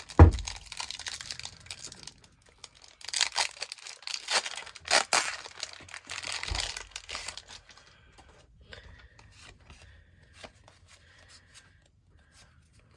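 Foil wrapper of a Pokémon TCG booster pack being torn open and crinkled by hand, in loud crackling bursts over roughly the first seven seconds, with a low bump right at the start. After that come only faint ticks of the cards being handled.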